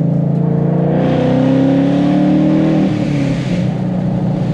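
Ford Mustang 5.0 V8 exhaust heard from inside the cabin, under acceleration. The revs climb steadily for about two seconds, then drop back just before the three-second mark and settle into a steady cruise.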